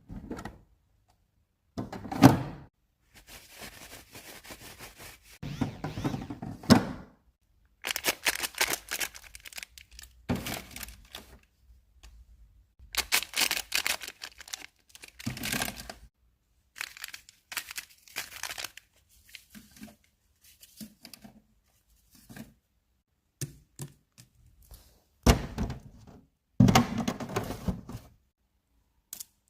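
Items being unpacked and loaded into a mini fridge: a string of irregular thunks and knocks, with bouts of packaging tearing and crinkling in between.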